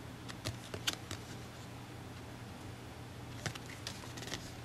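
Trading cards being handled and shuffled by hand: a cluster of light clicks and taps around the first second and another near the end, over a steady low hum.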